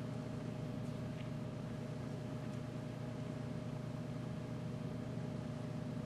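Room tone: a steady low hum with a faint steady tone above it, and a couple of faint ticks about a second in.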